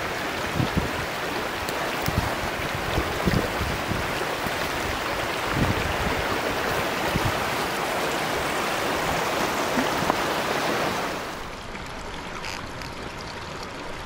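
Small mountain stream rushing steadily over rocks and riffles. The rush drops quieter about eleven seconds in.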